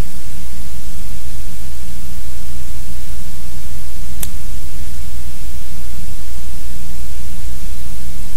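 Steady hiss with a low electrical hum underneath, and one short click about four seconds in.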